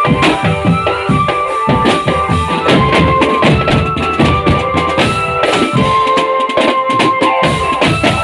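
A marching drum band playing: rapid drum and percussion strokes under a melody of held notes.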